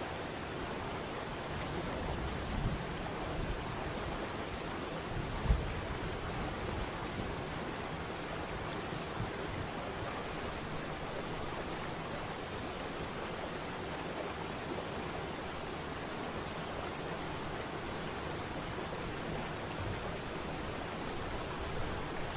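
Waterfall rushing in a steady, even hiss, with a couple of brief low thumps, the sharpest about five and a half seconds in.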